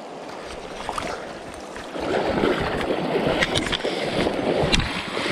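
Running river water, then from about two seconds in louder splashing and sloshing at the surface with scattered sharp clicks.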